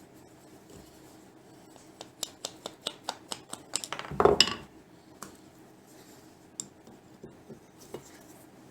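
Metal parts of a hand plane clinking and tapping as it is taken apart with a screwdriver. There is a quick run of sharp clicks, a louder clatter about four seconds in, then a few scattered taps.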